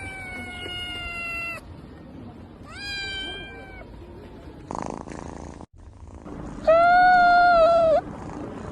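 A cat meowing: three drawn-out meows, the last and loudest lasting over a second near the end.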